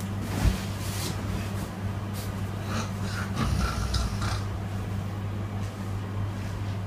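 A sleeping person snoring: irregular noisy breaths, the longest about halfway through, over a steady low hum.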